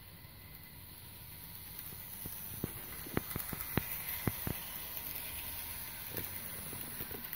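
Toy train set running on its track and passing close by: a steady running noise that grows louder over the first three seconds and then holds, with a scatter of sharp clicks, most of them in the middle.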